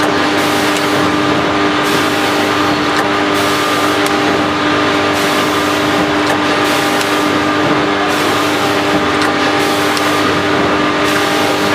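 ATM 920W vertical granule packing machine running: a steady mechanical hum with several fixed tones over a constant hiss, the top of the hiss cutting in and out every second or two as the machine cycles.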